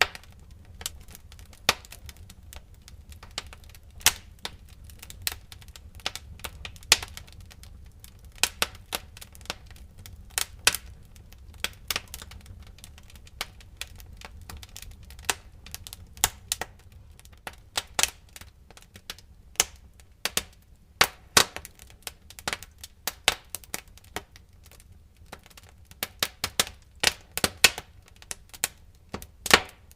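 Wood fire crackling in a fireplace: irregular sharp pops and snaps, some single and some in quick clusters, over a low steady rumble. The pops bunch up more densely near the end.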